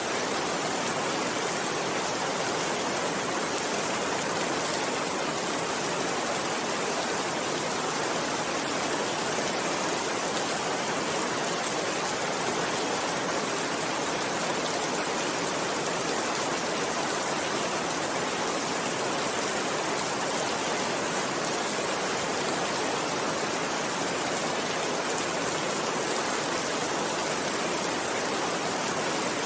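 Steady rainfall: a dense, even hiss of raindrops with no distinct drops or pauses.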